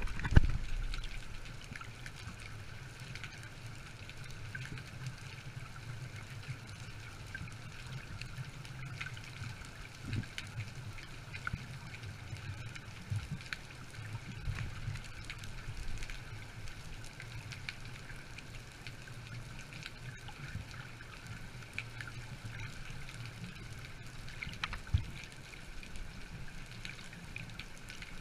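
Underwater ambience heard through a camera's waterproof housing: a steady low rumble with faint steady high hums and scattered small clicks. A sharp knock comes just after the start, and a smaller one near the end.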